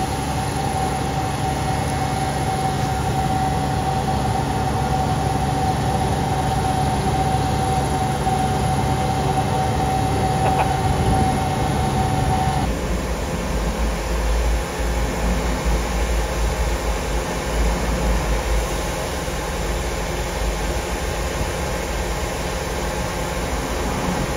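Heavy machinery of a drain-jetting and inspection truck running steadily, with a constant whine over a low hum. About halfway through, the sound changes abruptly to a deeper, rougher low running.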